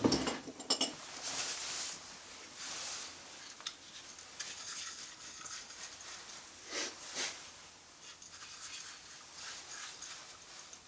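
Light handling noises at a table: a brief clatter of small clicks at the start, then scattered soft rustles and hisses.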